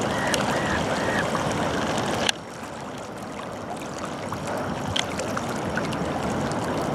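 River water washing and lapping on the Thames foreshore, a steady rushing that drops abruptly in level about two seconds in.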